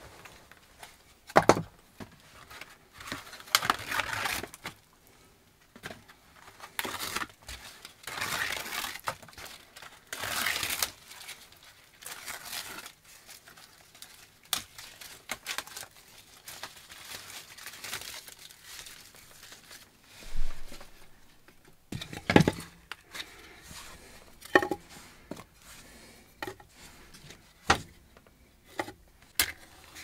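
Split firewood being handled and knocked down onto a stack, with dry bark being torn and rustled into strips for tinder, in a small wooden room. A few sharp wooden knocks stand out, the loudest about a second and a half in and again past the twenty-second mark, and a match is struck near the end.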